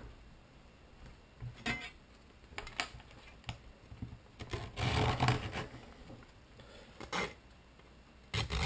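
Fine-toothed hand saw cutting through a wooden clothespin half: a handful of short saw strokes, spaced unevenly, the longest and loudest about five seconds in.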